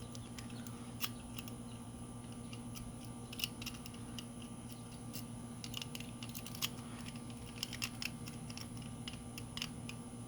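A lock-pick rake being worked in the keyway of a disc padlock, making small, irregular metallic clicks and scrapes as it jiggles the pins. A steady low hum runs underneath.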